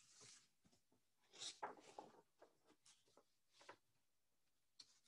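Faint rustling of a picture book's paper pages being handled and turned: a string of short, soft papery sounds, the loudest about one and a half to two seconds in.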